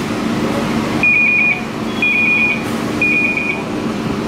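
Electronic security alarm beeping, a high steady tone about once a second, three beeps, over the low hum of the store. It is taken for a store security alarm, which the shoppers suspect their camera set off.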